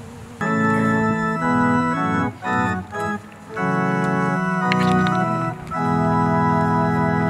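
Organ playing slow, held chords in short phrases, introducing a hymn.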